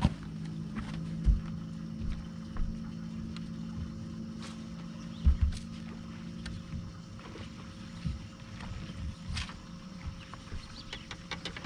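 A bass boat's electric motor hums steadily on the water and stops about eight seconds in. Over it come a few heavy thumps on the boat deck and some sharp light clicks.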